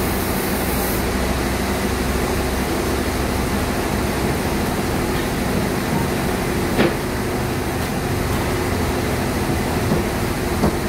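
Band sawmill running steadily, a constant machine drone with a steady hum, with one sharp knock about seven seconds in.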